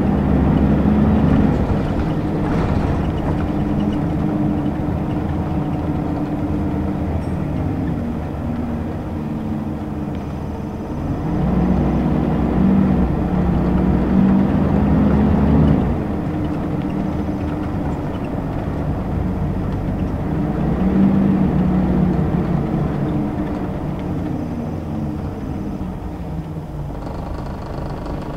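Interior sound of a Scania L94UB city bus on the move: its five-cylinder diesel engine and ZF automatic gearbox, the engine note rising and falling several times as the bus pulls ahead, changes gear and slows.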